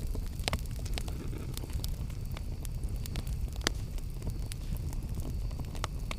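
Campfire burning: a steady low rumble of flames under irregular crackling and sharp pops of burning wood, with a few louder pops standing out.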